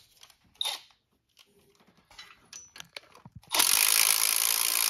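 Cordless power ratchet running steadily for about two seconds from past the middle, spinning a long bolt down through an AC bracket into the intake manifold until it is down tight. A few light metal clicks of handling come before it.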